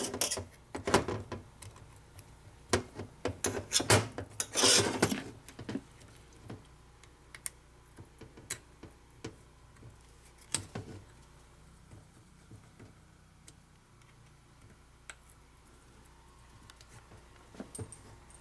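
Small metal parts and hand tools clinking and rattling as a motorcycle transmission is taken apart. There are bursts of clatter in the first five seconds or so, then only sparse light ticks.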